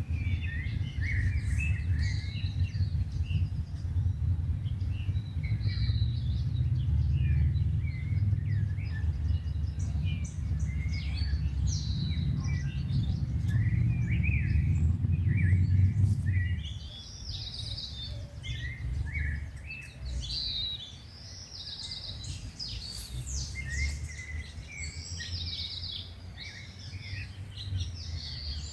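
Small birds chirping and trilling, many short overlapping calls, over a low steady rumble that stops abruptly a little past halfway, leaving the birdsong clearer.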